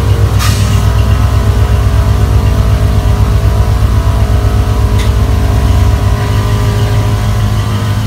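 A 1994 GMC 1500 pickup's engine idling steadily, with a sharp click about half a second in and a fainter one about five seconds in.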